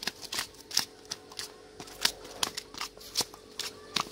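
A freshly caught pacu flopping on a concrete path, its body slapping and tapping the ground in an irregular run of sharp slaps.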